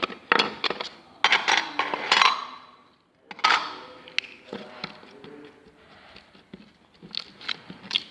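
A string of sharp clicks and knocks, like small containers being picked up and set down, bunched in the first two and a half seconds and again near the end, with quieter handling noise between.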